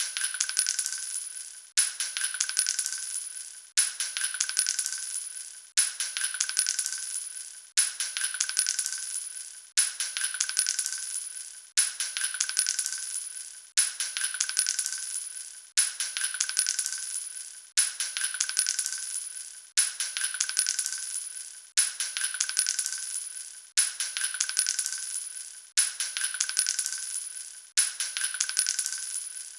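Spent metal shell casings dropping and clattering onto a hard floor: a burst of tinkling, ringing clinks that dies away over about two seconds. The same drop repeats as a loop about every two seconds.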